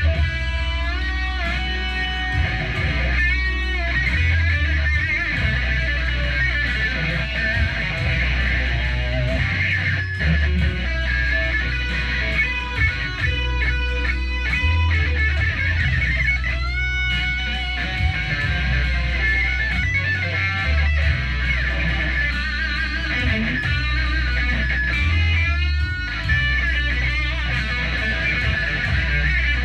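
Amplified electric guitar playing a lead line, with notes bent and shaken in vibrato over sustained low notes that change every second or two.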